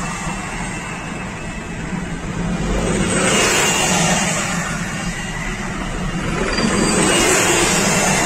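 Road and engine noise heard from inside a moving car. It swells twice, about three seconds in and again about seven seconds in, as the car draws alongside the tanks.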